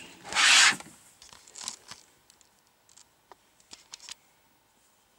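Paper and a folder being handled: one loud rustling scrape of about half a second near the start, then a few faint rustles and taps.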